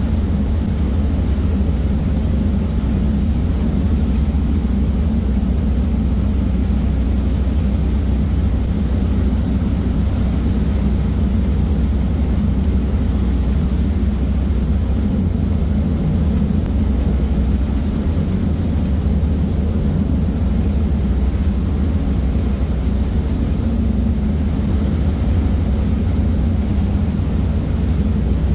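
Passenger ferry under way at cruising speed: a steady low drone from its engines, with the even rush of the churning propeller wake behind the stern.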